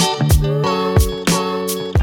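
Background music: guitar with a steady beat of drum hits about every half second.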